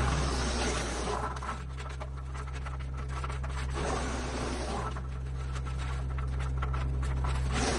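Tractor-driven Frontier DH8 wood chipper running steadily while it chews branches. A crackling, grinding noise swells and fades several times over the engine hum as wood feeds through: loudest near the start, about four seconds in, and near the end.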